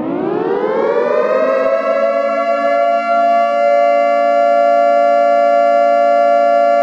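Civil defense siren winding up, its pitch rising over the first couple of seconds, then holding a loud, steady wail.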